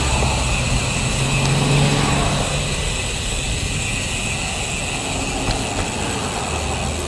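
Road traffic: a car engine running close by over steady wind and road noise, the engine hum strongest for the first couple of seconds.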